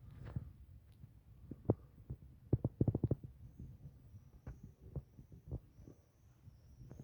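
Irregular soft knocks and taps over a low hum, with a quick run of about eight taps around three seconds in.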